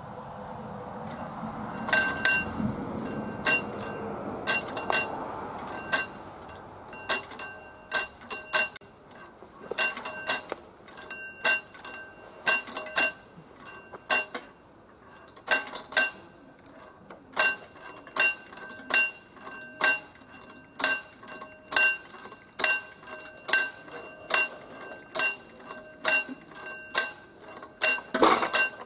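Level-crossing pre-warning bell (předzváněč) of mechanical barriers, striking over and over with a clear metallic ring. Its strikes come unevenly at first and then settle at about one or two a second, sounding the warning before the barriers are lowered.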